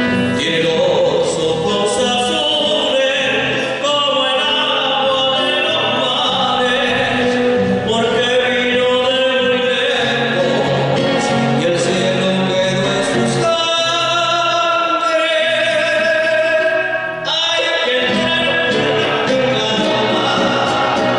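Recorded folk song with singing over instrumental accompaniment.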